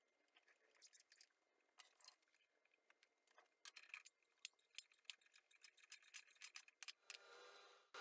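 Faint, small metallic clicks and ticks from hand tools being handled at a metal lathe, with a quick run of about six ticks a second through the middle. A brief, quiet steady whirr follows near the end.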